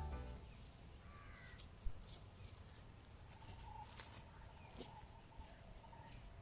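Quiet rural outdoor ambience with birds calling, a run of short repeated calls in the second half; a single sharp click about two seconds in.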